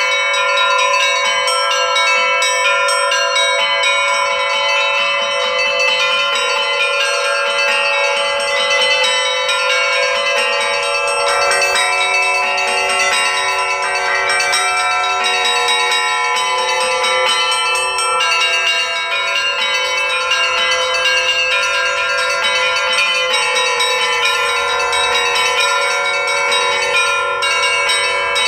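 Russian-style peal (zvon) on a set of LITEX-cast church bells, with the small treble bells chiming in quick, dense strokes over the sustained hum of the larger bells. About a third of the way through, a lower bell starts striking at a steady pace.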